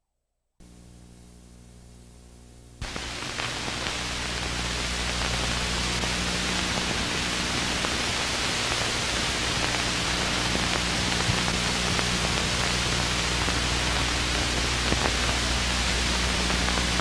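Steady hiss and electrical hum of an old film soundtrack with no programme sound on it. A faint hum at first; about three seconds in, a loud hiss cuts in and holds steady, with a few small pops.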